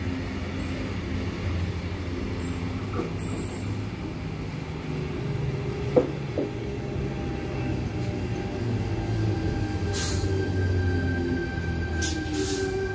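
Tangara electric multiple unit pulling into the platform: a steady low rumble of wheels and running gear with whining tones. One sharp click sounds about six seconds in, and short hisses and a steady high tone come near the end.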